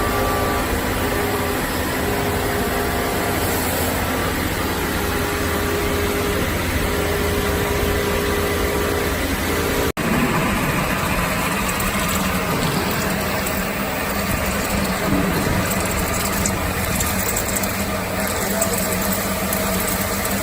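Machine-shop machinery running steadily, with a constant mechanical hum and hiss. About halfway through there is a sudden cut to a different steady machine sound.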